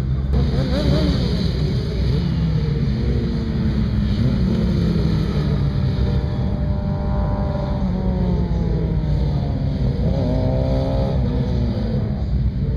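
Racing motorcycle engines at high revs as the bikes go past on the circuit. The pitch climbs in steps through the gears and then falls away, twice, over a steady low rumble.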